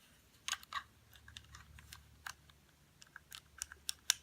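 Irregular light clicks and taps of a small plastic Seiko mini alarm clock being handled, with a few sharper clicks about half a second in and again near the end.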